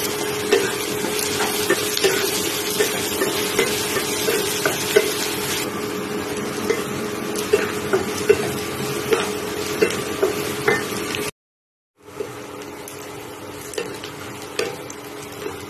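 Chopped onions sizzling in hot mustard oil in a kadai, stirred with a spatula that taps and scrapes against the pan over and over, over a steady hum. The sound cuts out briefly near the end and comes back quieter.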